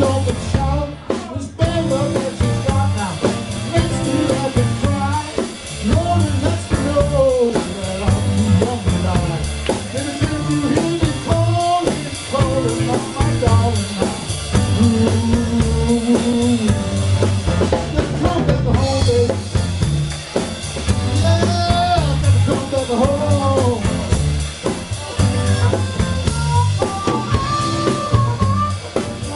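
Live blues band: a harmonica solo played into the vocal mic, with bends, over a Roland stage piano, electric bass and drum kit.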